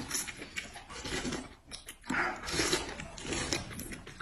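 People eating noodles close to the microphone: chewing and slurping in irregular bursts.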